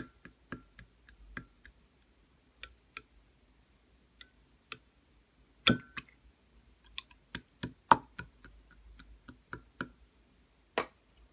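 Slime being squeezed and stretched by hand, giving irregular sharp clicks and pops, with a few louder pops around the middle and near the end.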